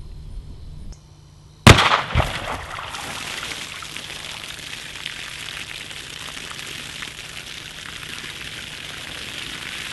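A 10mm round striking a bucket of water-filled bags: one sharp, very loud bang about two seconds in, a smaller knock half a second later, then a steady sound of water spilling and trickling out of the burst bags.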